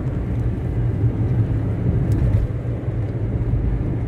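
Car driving at a steady speed, heard from inside the cabin: a steady low rumble of engine and tyres on the road.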